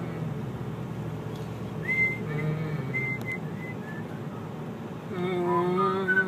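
A person whistling a few short high notes over the steady road noise of a car in motion, then a long held note of the voice near the end.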